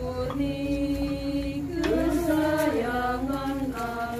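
A group of voices singing a slow hymn, holding long notes, with several voices overlapping in the middle.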